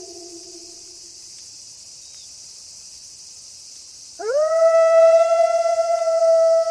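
A wolf howling: the tail of one howl slides down and fades in the first second, then after a pause a new long howl sweeps quickly up in pitch about four seconds in and holds one steady note. A steady high hiss sits under it throughout.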